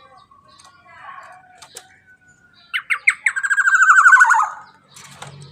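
Black-naped oriole (kepodang emas) calling: a few short sharp notes, then a long, loud, rasping call that falls slightly in pitch before it stops.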